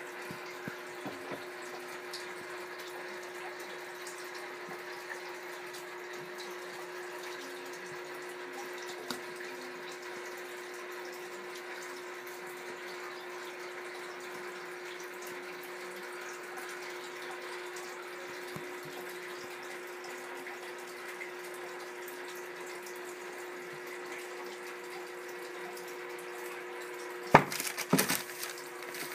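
Steady hum and hiss in the background throughout. Near the end comes one sharp knock, then a short clatter of smaller knocks.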